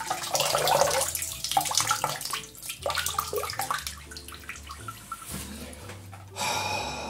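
Water splashing and running in a bathroom sink as a towel is soaked and wrung out for a hot-towel compress. There is another brief splash near the end.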